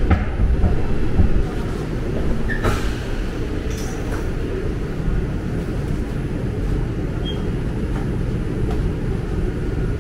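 New York City subway train at a station stop: a steady low rumble, with a few knocks and clatters in the first four seconds.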